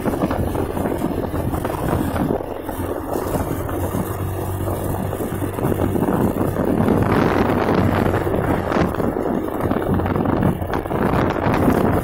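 Wind rushing over the microphone of a moving vehicle, with a low, steady engine hum underneath. It grows louder about seven seconds in.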